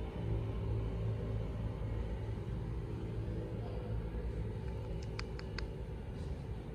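Steady low vehicle rumble, with three quick, sharp ticks about five seconds in.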